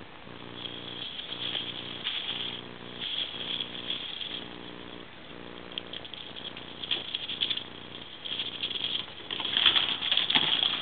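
Plastic bag and foil flexible duct crinkling and rustling in repeated bursts as ferrets play with them, loudest about a second before the end.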